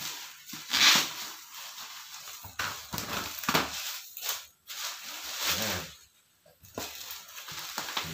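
Bubble wrap rustling and crinkling in irregular bursts as it is cut open and pulled off a cardboard box, with a short pause about six seconds in.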